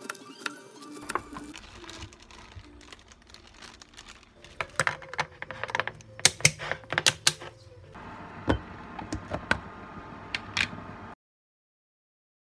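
Food-prep handling sounds: soft plastic-bag rustling around a knife cutting pineapple, then a run of sharp clicks and knocks about four and a half seconds in as a plastic Glasslock lid is pressed down and its snap latches are clicked shut. The sound cuts off abruptly near the end.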